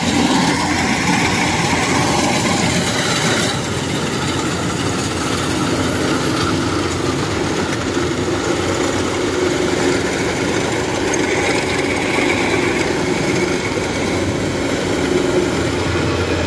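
Kubota rice combine harvesters running steadily under load while cutting and threshing rice: a loud, continuous din of diesel engine and threshing machinery. About three and a half seconds in the sound changes as the nearer machine, a Kubota DC-105X, is heard close up.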